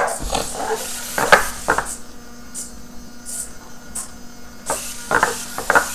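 Clear plastic legs of a small hexapod robot clicking and knocking on a wooden desk as a hand moves them, with a few separate knocks in the first two seconds and lighter sounds after.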